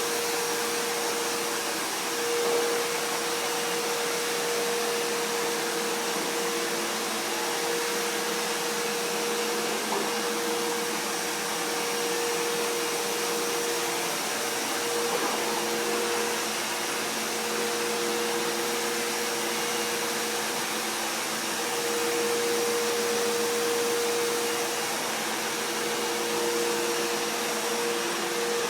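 Vacuum cleaner running steadily: a constant motor whine and airflow hiss with a low hum that shifts slightly in level now and then.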